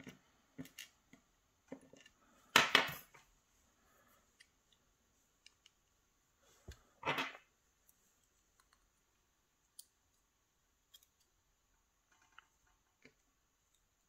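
Small metal clicks and taps of steel tweezers handling brass lock pins from a Sargent cylinder in a plastic pinning tray. Two louder short clatters come about three and seven seconds in.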